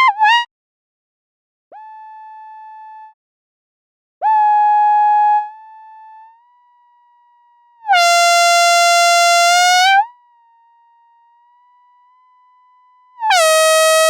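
A series of held electronic tones, each lasting one to two seconds with short pauses between. Each tone slides into and out of its pitch. The later tones are lower, brighter and buzzier, like a horn.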